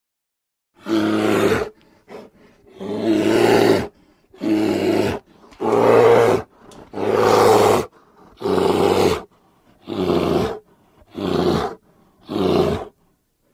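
A bear roaring over and over as edited sound effects: about nine separate roars, each lasting up to about a second, with two short grunts early on and clean silence between them.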